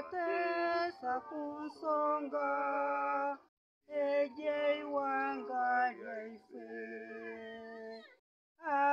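A boy singing solo without accompaniment, in long held notes. He pauses for breath about three and a half seconds in and again near the end.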